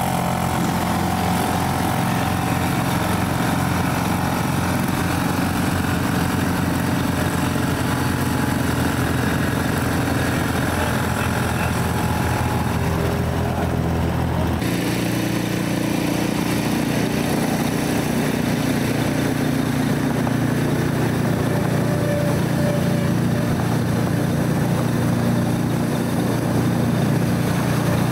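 All-terrain vehicle engine running steadily at low revs. About halfway through the engine note changes abruptly to a different, lower one.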